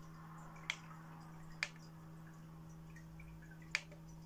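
Three sharp clicks as the front-panel push buttons of a Technics SH-TX100 THX preamp processor are pressed, over a steady low hum.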